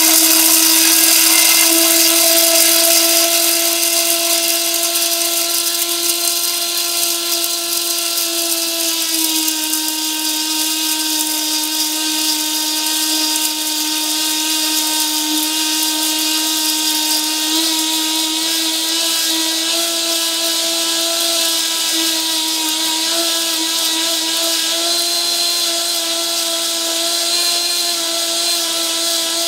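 High-speed multifunction grinder's motor running at a steady pitch, its blade pulverising dry beans into powder. It eases slightly in loudness over the first several seconds, then holds steady.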